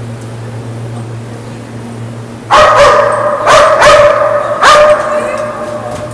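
Dutch Shepherd search dog barking in a rapid run of loud barks, starting about two and a half seconds in: a trained alert at the hiding place of a concealed person. Before the barking, only a steady low hum.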